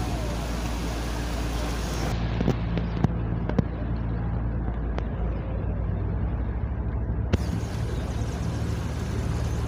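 Riverboat's diesel engine running steadily with a low drone as the boat gets under way, over a haze of wind and water noise. A few sharp clicks come between about two and seven seconds in.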